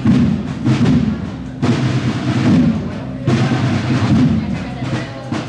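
A band playing processional music, with held low notes and drum beats.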